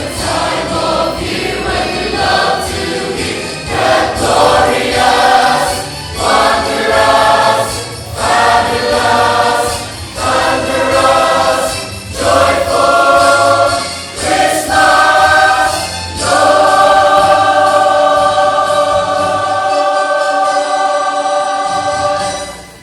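Choir singing a Christmas cantata number in short, punchy phrases, then holding one long final chord for several seconds that cuts off just before the end.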